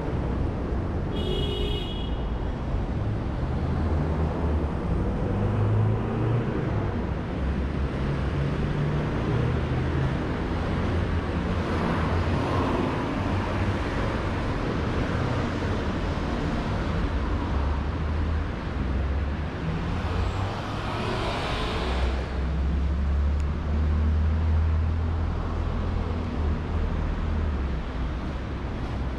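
Steady city street traffic: cars running along the road, with two passing vehicles swelling up a little before the middle and again about two-thirds through, followed by a low engine rumble. A short high beep sounds about a second in.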